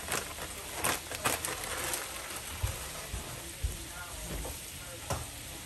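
Spam, mushrooms, peppers and onions frying in butter in a nonstick pan: a steady sizzling hiss with a few sharp crackles in the first second or so. Two dull thumps come in the middle.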